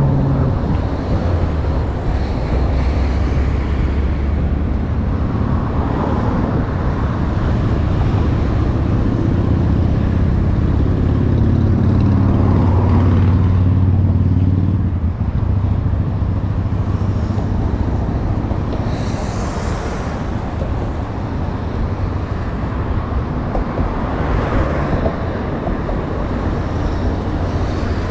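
Steady road traffic, with vehicles passing every few seconds and a heavier engine going by about ten to fifteen seconds in.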